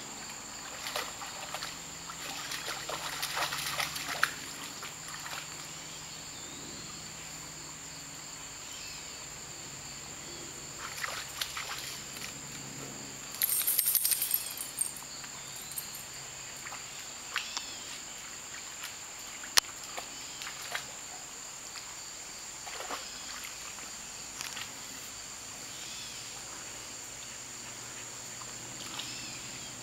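A steady high-pitched drone of insects, with irregular bursts of splashing and scrabbling from a dog digging in shallow water and mud. The bursts are loudest about three to four seconds in and again around fourteen seconds in.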